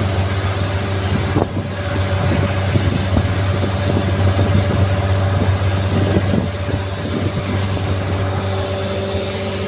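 Longtail boat's engine running steadily at cruising speed: a constant low drone over a steady hiss.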